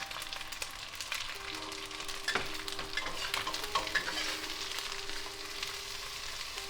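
Whitebait, bean curd and scallions stir-frying in a hot pan: a steady sizzle as the sauce cooks off, with the spatula scraping and clicking against the pan.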